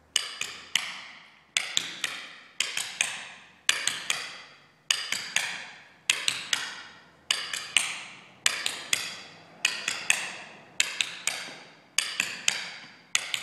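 Tap shoes on a wooden floor doing repeated buffalo steps (step, shuffle, leap): a cluster of three or four sharp metal taps about every second and a bit, in an even rhythm.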